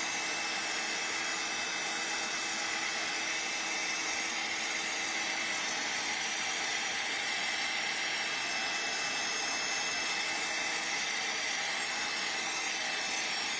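Handheld craft heat tool blowing steadily: an even rush of hot air with a faint steady hum. It is drying water-sprayed oxide ink on a stamped card.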